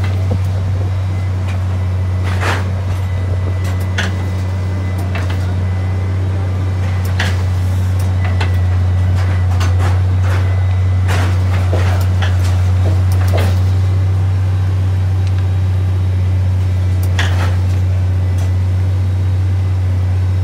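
Track-laying machine running with a steady, loud, low drone, its note unchanged throughout. Half a dozen short metallic clanks and knocks from its rail-handling gear are scattered through it.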